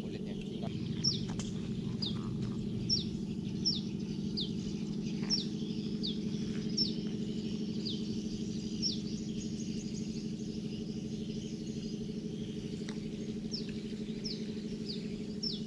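A bird repeating short, high chirps that slide downward, about one or two a second with a pause in the middle, over a steady low hum.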